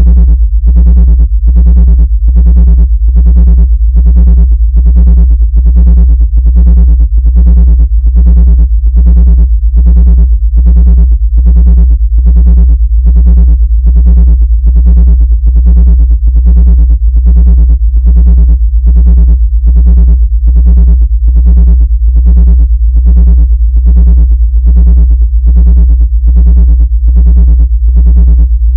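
Loud synthesized electronic tone: a steady deep bass hum with a higher part pulsing evenly about three times every two seconds. It is played as a frequency meant to drive ants out of a laptop.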